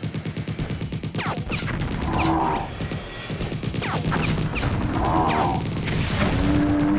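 Rapid gunfire sound effect, a fast, even rattle of shots, with several falling whistles and a few louder blasts mixed in.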